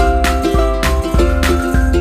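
Background music with a steady beat, bass line and plucked-string melody.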